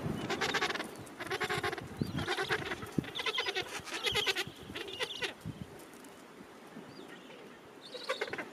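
Gentoo penguins calling in a rookery: a run of harsh, rapidly pulsed calls through the first five seconds, a quieter stretch, then more calls starting near the end.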